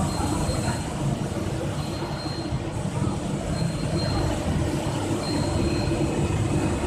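Biomass wood-chip burner firing a steam boiler: a steady low roar. A faint high-pitched tone sounds for about half a second, repeating roughly every second and a half.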